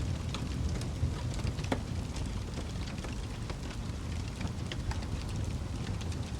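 Wood fire crackling in a fireplace: a steady low rumble of flames with frequent sharp, irregular pops and snaps.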